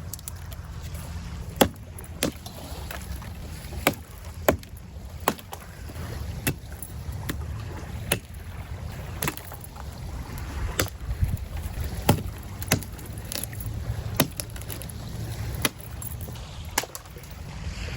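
Dead branches being broken off a fallen tree: sharp cracks about once a second, at uneven intervals, over a steady low rumble.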